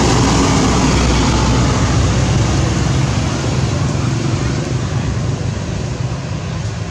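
A motor vehicle's engine running close by, a steady hum under a loud wash of noise that slowly fades over the last few seconds.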